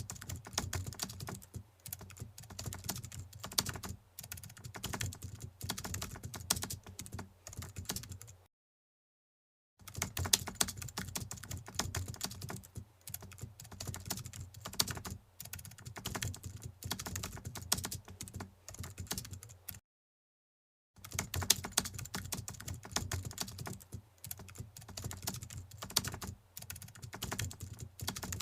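Fast, irregular keyboard-typing clicks, stopping dead twice for about a second each, about a third and two-thirds of the way through.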